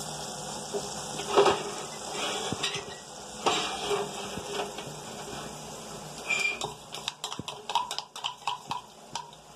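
Metal spatula stirring Maggi noodles in an aluminium pot, knocking and scraping against the pot, over a steady hiss. Toward the end comes a run of quick metallic clicks.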